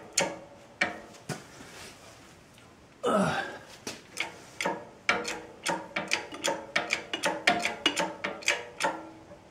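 Hydraulic shop press being pumped to drive a bearing home: a run of short metallic clicks, about three a second, from the bottle-jack pump and ram. After a quieter first few seconds comes one brief sliding creak about three seconds in.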